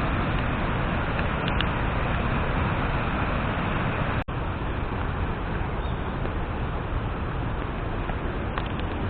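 Steady rushing noise of running water. There is a brief gap a little over four seconds in.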